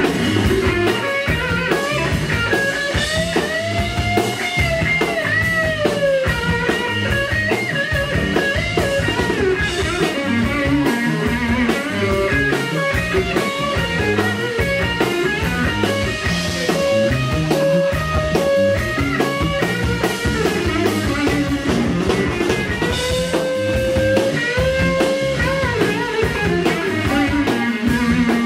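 Live blues band playing, an electric guitar leading with bending, sliding notes over the beat.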